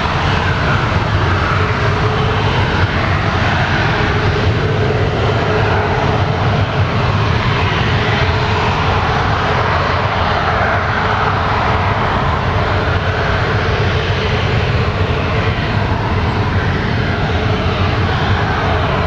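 Twin General Electric CF34 turbofan engines of an Embraer 170 airliner running as it rolls out along the runway after landing. A steady jet rumble with a faint steady whine in it, slowly swelling and fading in the mid range.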